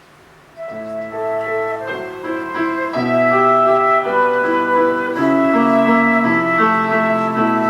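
A children's orchestra with a cello ensemble starts playing about half a second in, with sustained notes and a melody moving over held chords.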